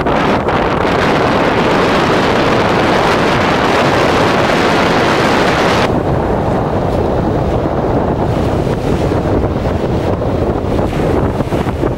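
Strong wind buffeting the microphone over breaking surf waves; the hiss drops away abruptly about six seconds in, leaving a lower rumble.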